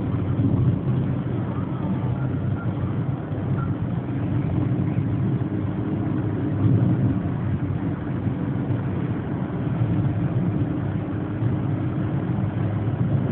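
Steady low rumble of a car's engine and road noise heard inside the cabin while driving.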